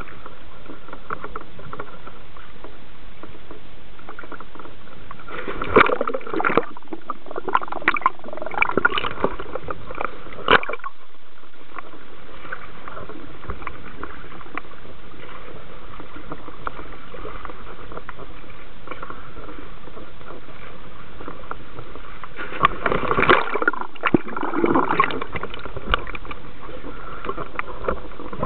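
Sea water sloshing and splashing right at the microphone at the waterline beside a dive boat, over a steady hiss, in two spells of irregular splashing: one about a fifth of the way in and one near the end.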